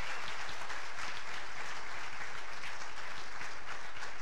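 Congregation applauding steadily, many hands clapping at once.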